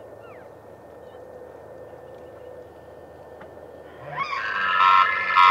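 A bull elk bugling in the rut, starting about four seconds in: a loud, high, rising whistle-like call that is still going at the end. Before it there is only a faint steady background.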